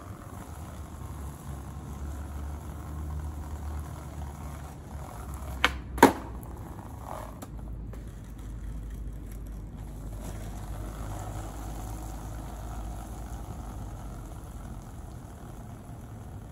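Skateboard wheels rolling on pavement with a steady low rumble. About six seconds in come two sharp clacks of the board hitting the ground, half a second apart, the second the loudest.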